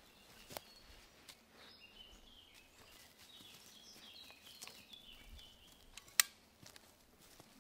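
A small bird singing a run of short, high notes for a few seconds, over faint forest background. Scattered clicks, with one sharp click a little after six seconds in, the loudest sound.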